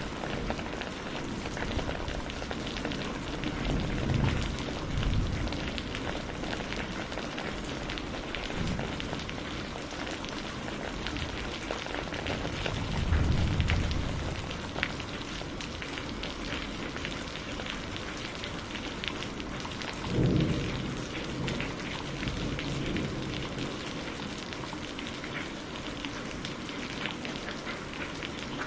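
Steady heavy rain hissing and pattering, with low rolls of thunder rumbling up three times: a few seconds in, about halfway, and again about two-thirds of the way through.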